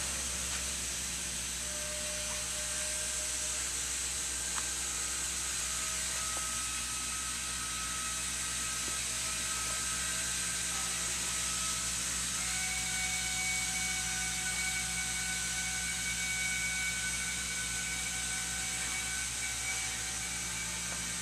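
Multi-spindle textile yarn machine running: a steady mechanical whir with a high hiss and faint steady whining tones that shift in pitch about halfway through.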